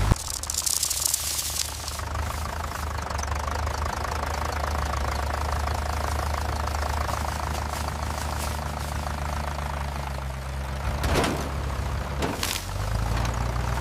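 Tractor engine running steadily with a low hum. There is a hiss in the first couple of seconds and two sharp knocks near the end.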